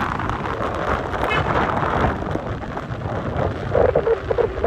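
Wind buffeting the phone's microphone over the road noise of a moving pickup truck.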